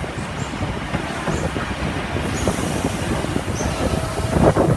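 D3-class steam locomotive rolling slowly past, tender first, its wheels rumbling on the rails. A hiss joins about halfway, and a louder burst of knocking comes near the end.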